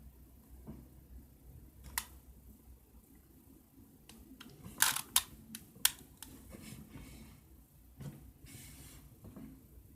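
Plastic Rubik's cube being turned by hand: scattered clicks of the layers snapping into place, a sharp one about two seconds in and a quick run of three loud clicks in the middle, with a brief scraping rasp near the end.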